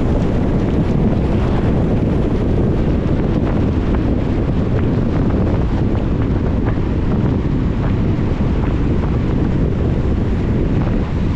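Steady low rumble of a car driving on a wet road in the rain: tyre and wind noise, with scattered faint ticks of raindrops.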